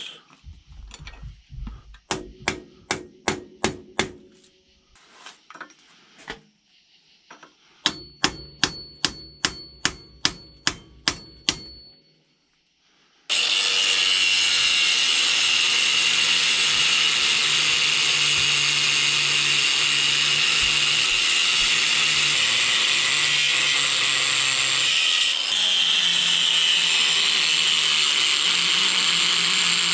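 Hammer blows on steel: a quick run of strikes, then a second run of about ten strikes that ring out. About thirteen seconds in, a power tool starts and runs steadily and loudly.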